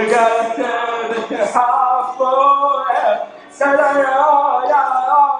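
A man's voice performing a phonetic sound poem a cappella: drawn-out, wordless sung syllables that slide in pitch, with a short break about three seconds in.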